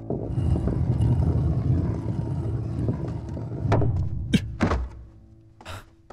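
Wooden wheelchair's large wheels rolling over a hard floor, a steady low rumble that lasts about four seconds. It ends with a few sharp knocks as the chair stops, then small clicks.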